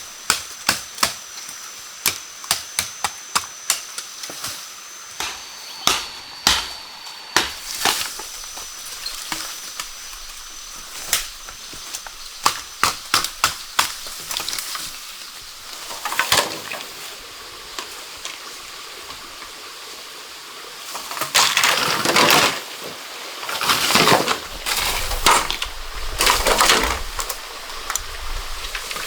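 Wood being chopped with a blade: a run of sharp, quick chopping knocks, then a few longer rough, splintering bursts near the end. A faint steady high whine sits behind the first part.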